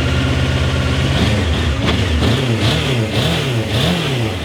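Suzuki GSX-R SRAD's inline-four engine running steadily, then from about a second and a half in revved up and down in quick repeated throttle blips. It is running rough on a cold start, which the rider puts down to the engine being a little flooded.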